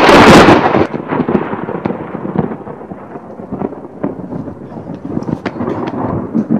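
Thunder sound effect: a loud clap that starts abruptly and is loudest in the first second, then a rolling rumble with scattered sharp cracks.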